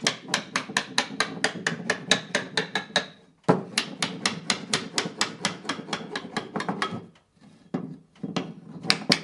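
Small hammer tapping rapidly on a wooden picture frame, light sharp knocks about seven a second. The taps come in runs broken by brief pauses, about three seconds in and again near the end.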